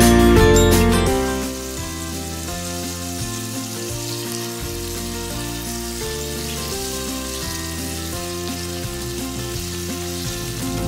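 Potato cubes frying in hot mustard oil, a steady sizzle, as they are turned with a wooden spatula.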